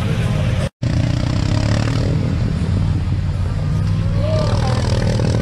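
ATV engine running in deep mud. The sound drops out completely for a moment just under a second in, then the engine carries on steadily.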